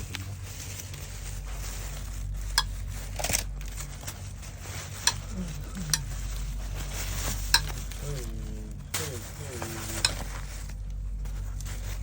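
Steady sizzle of potato and capsicum sabzi cooking in a pan while a spoon stirs it. Sharp clicks of the spoon striking the pan come every second or two.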